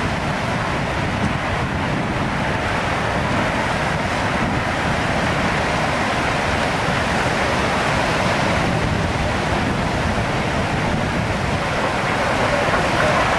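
Tsunami floodwater surging through a town's streets and around houses: a steady, loud rushing of churning water.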